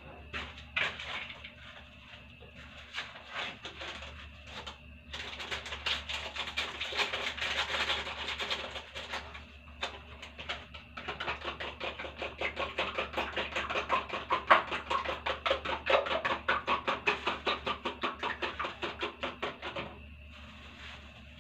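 A metal spoon beating eggs in a small bowl, clinking against the bowl's side in rapid, even strokes. It starts with scattered taps, runs steady and fast with a short pause about ten seconds in, and stops just before the end.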